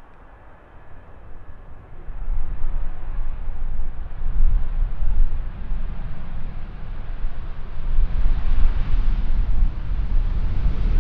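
Jet airliner engine noise building as the plane approaches, stepping up about two seconds in and growing brighter from about eight seconds in. Wind buffets the microphone.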